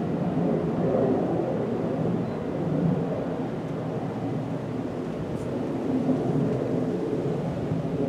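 Strong, gusty wind buffeting the microphone: a low rushing rumble that swells and eases.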